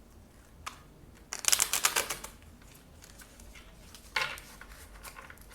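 Tarot deck being shuffled by hand: a quick run of rapid flicking clicks lasting about a second, then a brief card rustle a little after four seconds in.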